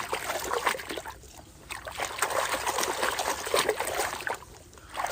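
Water trickling and splashing as a toy truck is washed by hand, with short breaks about a second in and again near the end.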